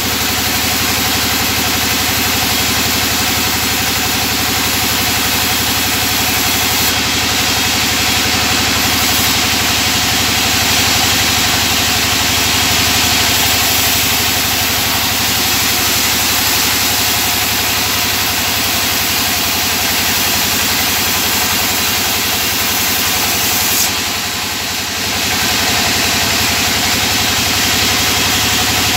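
Band sawmill running steadily as boards are resawn into thin planks, a loud unbroken machine drone with the blade's hiss over it. The level dips briefly about twenty-four seconds in.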